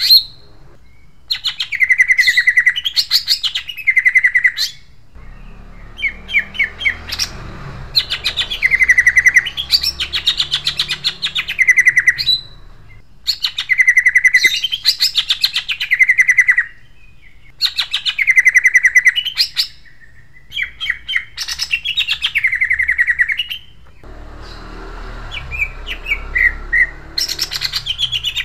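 Male greater green leafbird (cucak ijo) singing loud, harsh, sharp rolling phrases of rapid repeated notes and trills, each a few seconds long, with short pauses between.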